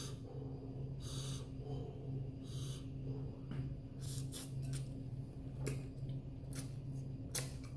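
A man eating fiery-hot instant noodles, with short sharp breaths and sniffs roughly once a second and a few wet mouth clicks and slurps as he takes in noodles. The hard breathing comes from the chili heat.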